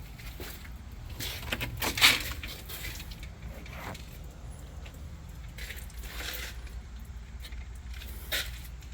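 Footsteps of someone walking, irregular crunching steps, the loudest about two seconds in, over a steady low rumble.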